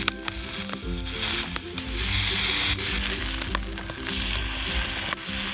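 Batter-coated French toast frying in hot vegan butter in a pan: a steady sizzle with scattered small pops.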